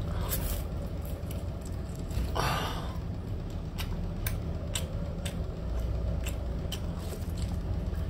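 Close-up eating of spicy canned sea snails: a slurping suck about two and a half seconds in, with scattered sharp wet clicks of chewing and shells, over a steady low hum.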